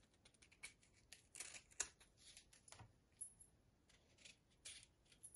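Faint, irregular short scrapes and rasps of a knife paring the skin off a firm avocado half, the skin too tough to peel away by hand.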